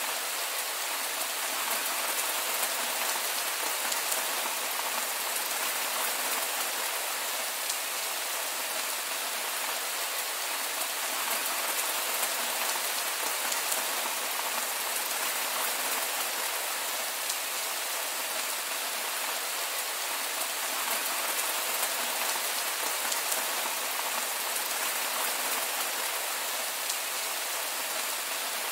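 Heavy rain falling steadily: an even hiss with fine scattered drop ticks.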